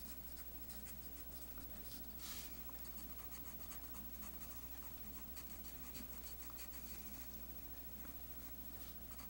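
Tip of a Promarker alcohol marker drawn over paper in many short, quick strokes: faint, rapid scratching, a little louder about two seconds in.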